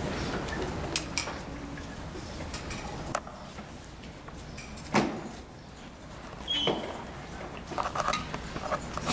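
Scattered light clinks and knocks over a low room hum, the loudest a sharp knock about five seconds in, with a brief ringing clink shortly after.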